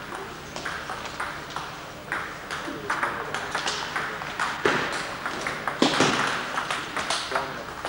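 Celluloid table tennis balls clicking on tables and bats, with several tables in play. Quicker, louder strikes of a rally come in the middle.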